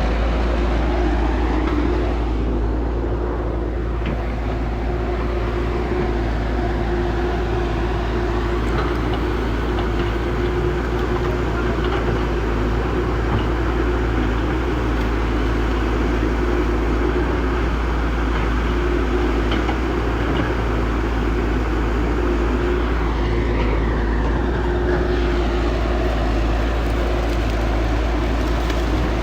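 Heavy earthmoving machinery running steadily with a constant low hum and drone, no pauses or impacts standing out.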